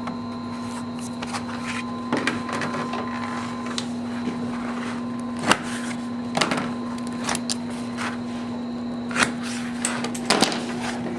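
Steady hum of workshop machinery, with a handful of sharp knocks and the rustle of paper templates being handled and laid out on a wooden bench.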